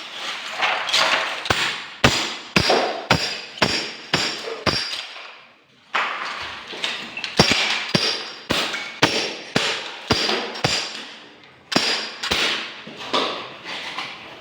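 Repeated hammer blows, about two a second, each a sharp strike with a metallic ring, breaking off for about a second midway and then resuming, as part of repair work on a sink.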